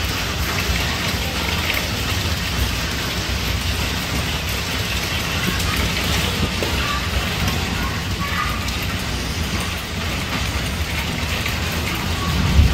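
Heavy rain mixed with small hail pelting a tiled roof: a steady, dense hiss of countless small hits, with a low rumble underneath.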